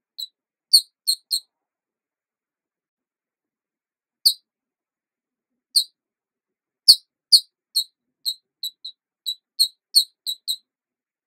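Short high-pitched chirps laid over silence as a sound effect. Four come in quick succession, then two single chirps, then a fast irregular run of about eleven near the end.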